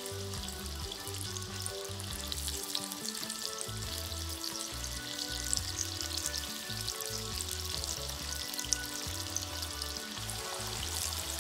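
Egg-and-flour-coated hake pieces deep-frying in a pot of hot oil, the oil sizzling with a steady dense crackle. Background music with a repeating bass line plays underneath.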